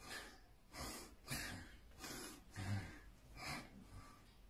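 A boy breathing heavily and noisily during an epileptic seizure: a quick, uneven run of loud breaths, roughly one every half second to second.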